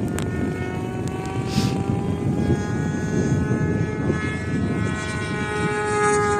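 Radio-controlled P-51 Mustang model plane flying: a steady engine-and-propeller drone whose pitch slowly rises and then falls as it passes, over a low rushing noise. A brief click sounds near the start.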